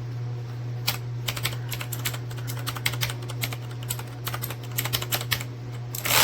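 Typing on a Corsair K70 RGB PRO mechanical keyboard with linear Cherry MX Red switches: an irregular run of quick key clacks, ending in a longer, louder clatter near the end, over a steady low hum.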